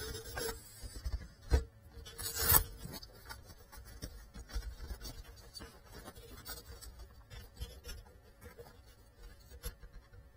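A small FPV quadcopter knocking against the floor as it comes to rest after a crash: two louder knocks about one and a half and two and a half seconds in, then faint crackling clicks.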